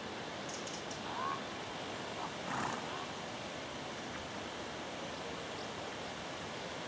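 Ravens calling overhead: two short calls about a second and a half apart, the second rougher than the first, over a steady rushing background.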